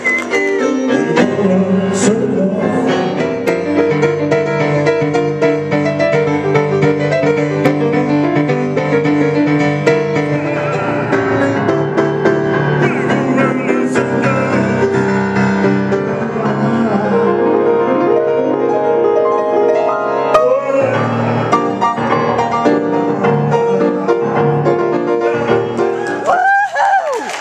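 Live jazz piano with a man singing into a microphone, ending with a sliding vocal note near the end.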